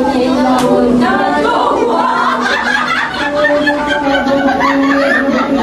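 A woman singing an unaccompanied dholki wedding song into a microphone, holding long notes, with other women's voices and chuckles mixed in.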